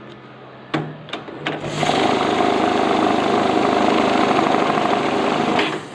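Glory GNH-710 banknote counting machine: three sharp clicks, then its motor and feed rollers run loudly and steadily for about four seconds before stopping abruptly.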